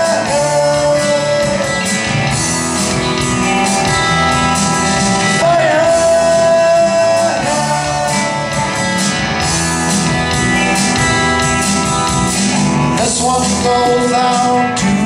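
Live rock band playing: electric guitars and drums under a lead voice singing long held, wavering notes.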